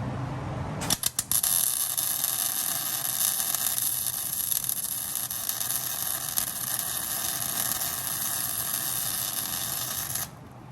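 MIG welder arc crackling as the wire is fed inside a nut to weld it onto a seized bolt so the bolt can be wrenched out. It sputters a few times about a second in, then runs steadily and cuts off suddenly near the end.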